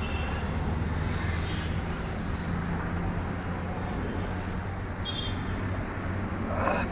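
Street traffic with a nearby motor vehicle engine running, a steady low hum. A short burst of noise near the end is the loudest moment.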